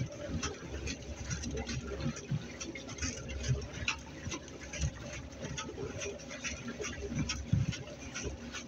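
Small waves lapping and slapping against a moving kayak's hull, heard as irregular ticks and patters with occasional low knocks.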